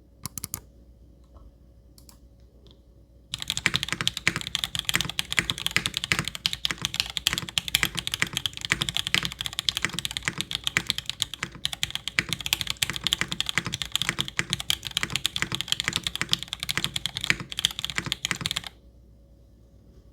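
A mechanical keyboard with an aluminum plate, broken-in Cherry MX Black linear switches and PBT keycaps. It starts with a few single keystrokes, then is typed on fast and continuously from about three seconds in until shortly before the end.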